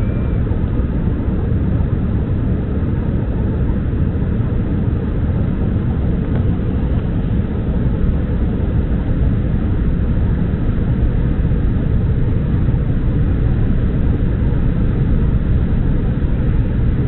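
Steady cabin noise of an Embraer 175 airliner in flight: an even, low rumble of airflow and its wing-mounted turbofan engines.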